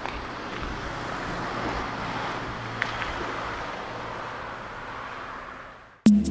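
Steady outdoor background noise, an even low rush with a faint click about three seconds in. Music starts just at the end.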